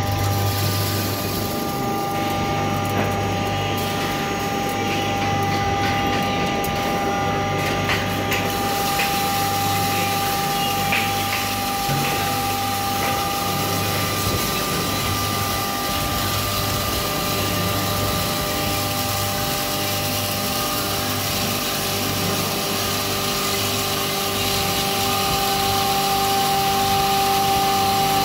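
Electric 3 HP pulveriser (flour mill) running steadily while grinding wheat, a constant motor hum with a steady high whine.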